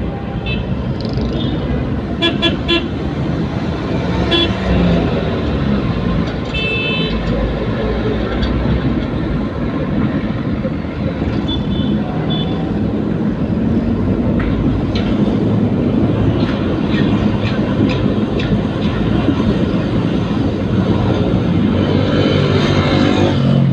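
A vehicle engine and road noise run steadily as the ambulance drives through traffic. Several short horn toots sound in the first half.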